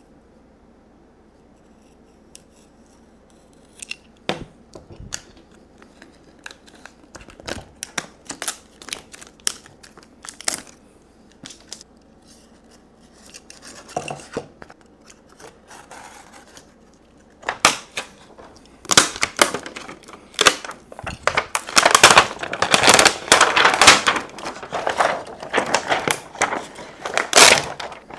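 Hand cutting tool working along the edges of a battery pack's black plastic wrap, with scattered sharp clicks and scrapes. About two-thirds of the way through, loud continuous crinkling and tearing begins as the wrap is peeled away from the fiberglass casing.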